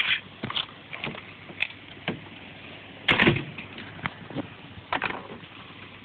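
Hand-powered flashlight being worked, giving irregular rubbing, scraping and clicking sounds. The loudest scrape comes about three seconds in and another near five seconds.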